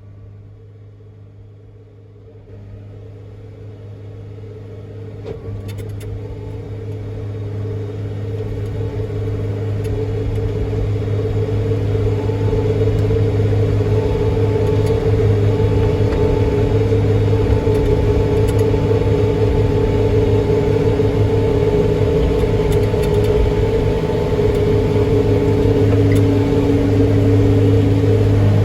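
Combine harvester running, its machine noise building steadily over the first dozen seconds and then holding at a loud, steady level with a deep hum and a higher drone.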